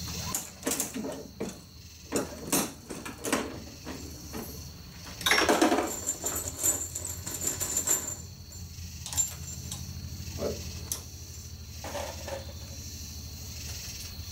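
Dillon RL 550B progressive reloading press being cycled to load .45 ACP. It makes a run of metallic clicks and clacks from the handle strokes and the indexing shell plate, with a longer, louder scraping rush about five seconds in.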